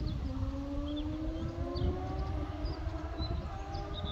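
Kawasaki Z H2's supercharged inline-four, through an Akrapovic race slip-on exhaust, accelerating: the engine note climbs steadily, drops briefly at a gear change just after the start, then climbs again.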